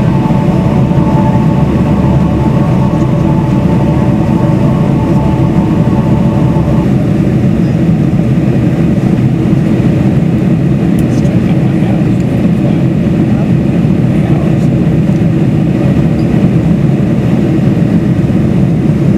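Airliner cabin noise in flight: the jet engines and rushing air make a loud, steady, low rumble. A set of steady whining tones runs along with it and stops about seven seconds in.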